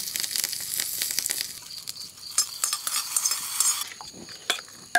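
Tempering of mustard seeds, dried red chillies and curry leaves sizzling and crackling in hot oil, stopping abruptly about four seconds in. A few light clicks of a steel spoon against a steel bowl of chutney follow near the end.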